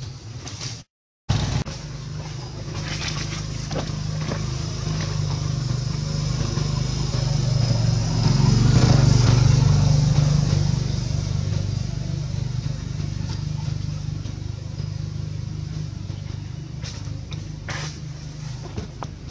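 A motor vehicle's engine running with a steady low hum, growing louder to a peak about nine seconds in and then slowly fading, as a vehicle passing slowly nearby.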